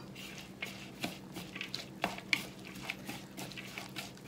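Mixing a wet batter of shredded carrot, carrot leaves and flour in a glass bowl, with wooden chopsticks and then by hand: irregular light clicks and taps against the glass, about two or three a second.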